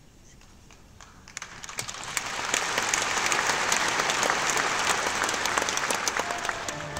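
Concert audience applauding. The clapping starts about a second in, swells to a full, dense ovation within about a second, and keeps going.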